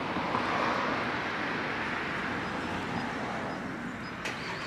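Steady road-traffic hiss of tyres on tarmac, swelling slightly near the start and easing toward the end, with a brief click near the end.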